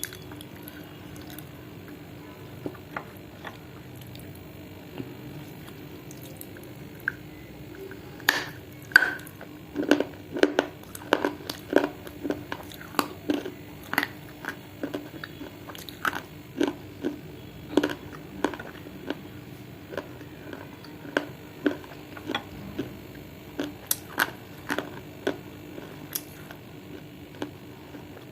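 A person biting and chewing dry baked clay close to the microphone: a few scattered crunches at first, then from about eight seconds in a steady run of loud crunches, roughly two a second. A faint steady hum lies underneath.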